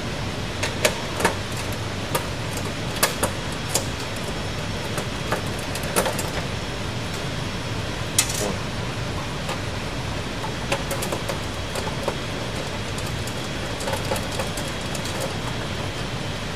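Scattered sharp metallic clicks and taps of an 11/32 nut driver working nuts off a steel recloser control panel, over a steady background hum.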